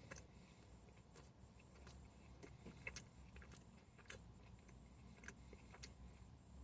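Near silence: a low steady hum with faint, irregular clicks of someone chewing a glazed cherry pie.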